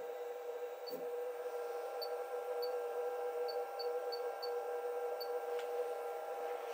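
CNC router's 800 W spindle running with a steady whine made of several even tones, with light scattered ticks and a couple of faint knocks, the end mill sitting in a groove in a wooden board.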